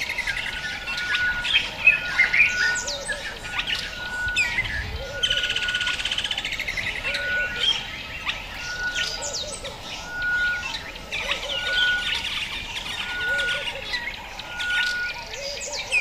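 Several wild birds calling at once. One repeats a short, even whistle note a little more than once a second. Another gives a rattling trill lasting a second or so every few seconds, over scattered high, falling whistles and low soft notes.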